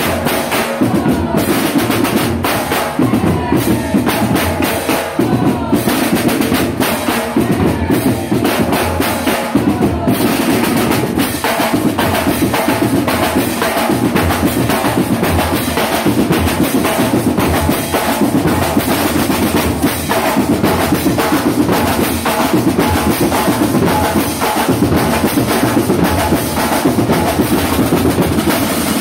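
Marching band drum line playing a steady, dense beat on snare and bass drums, without a pause.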